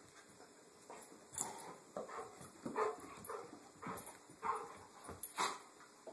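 Two golden retrievers play-fighting, with a run of short, irregular dog vocalizations starting about a second in, roughly two a second.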